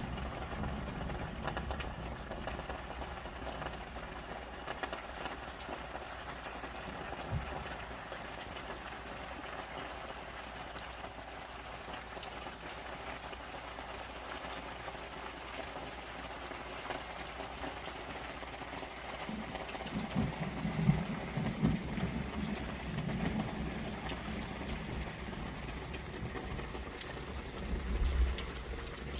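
Rain falling steadily onto tarps, a continuous even hiss, with a louder low rumble about two-thirds of the way through and a short one near the end.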